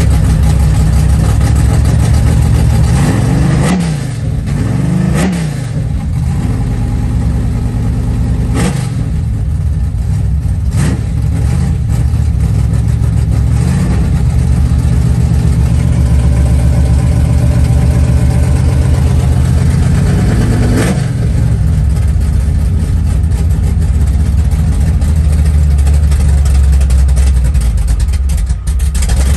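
Car engine running through open exhaust cutouts, idling loud and low and revved briefly several times.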